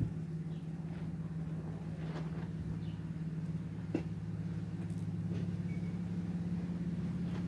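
A steady low engine hum, as from a motor vehicle running, with a sharp thump at the very start and a few faint clicks scattered through.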